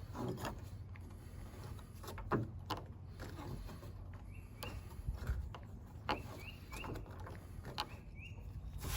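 Swiss Army knife blade cutting and scraping wood in short, irregular strokes, with birds chirping in the background.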